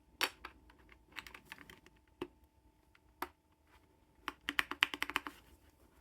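Typing on an Arzopa K81 mechanical keyboard: a few scattered keystrokes, then a quick run of keys near the end.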